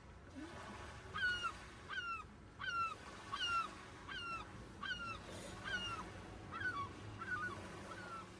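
A goose honking about ten times in an even series, each honk a short nasal call that bends down in pitch, growing fainter near the end.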